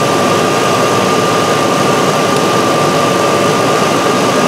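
Chevrolet 4.8-litre V8 idling steadily at about 800 rpm, with a steady high whine over the running noise. The engine is running rich, its fuel trims pulled to about minus 30 percent.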